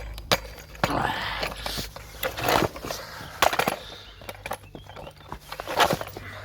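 Irregular knocks, cracks and short scrapes as a Poulan Pro chainsaw is broken apart, with the loudest bursts about a second in, halfway through and near the end.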